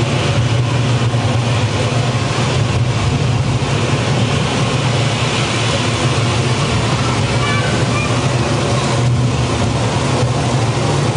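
Steady rush of water from a simulated tropical rainstorm and waterfall in an indoor jungle exhibit, with a deep, even rumble underneath.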